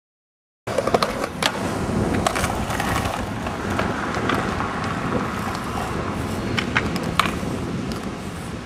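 After a moment of silence, skateboard wheels rolling over concrete pavement: a steady rumble with sharp clacks here and there.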